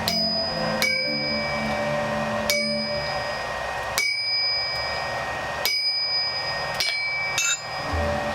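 Blacksmith's hammer striking a steel knife blade on an anvil, about seven blows spaced roughly a second or more apart, each leaving a high metallic ring that fades.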